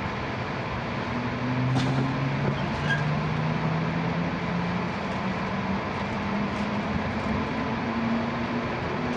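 Cabin sound of an E6-series Shinkansen car pulling away from a station: a steady rumble with a low motor whine that climbs slowly in pitch as the train gathers speed, and a few faint clicks.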